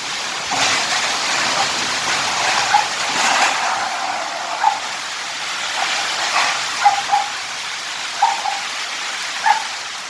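Steady hiss of strong wind and rain, with a dog barking several short times.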